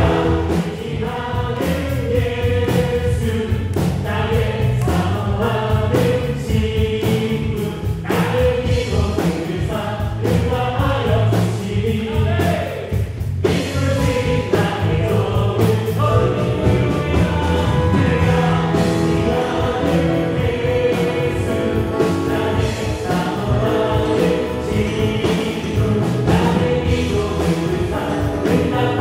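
Live worship band playing a gospel praise song, with electric guitar, bass guitar, drum kit and keyboards under several voices singing.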